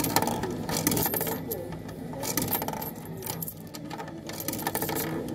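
Coins clicking and clinking against metal as they are fed into the coin slot of a coin-operated kiddie ride, a run of small irregular clicks.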